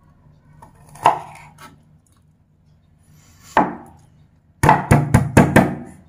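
Kitchen knife chopping on a wooden cutting board: a single knock about a second in, another at about three and a half seconds, then a quick run of about six chops near the end.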